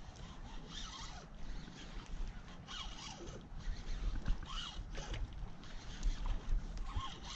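Baitcasting reel being cranked in several short raspy bursts, over a low rumble on the microphone.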